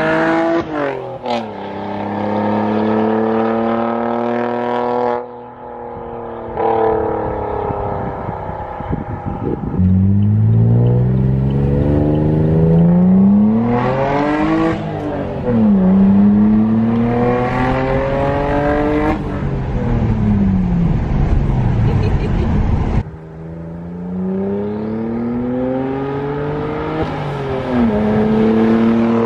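Saab 9-3 Turbo X's 2.8-litre turbocharged V6, nearly straight-piped through a Krona downpipe and midpipe, revving hard and accelerating through the gears. The exhaust note climbs in pitch and drops back at each shift, in several joined clips, one recorded inside the car.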